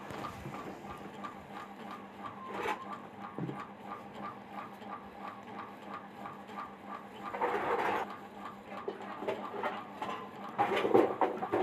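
Steady rapid ticking, about four ticks a second, with a single click early on and brief louder rustling noises about seven and eleven seconds in.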